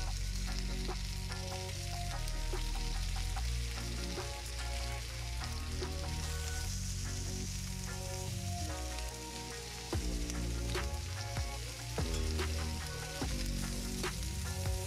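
Chicken legs sizzling on a hot ridged griddle as they are laid down, with background music and a bassline over it.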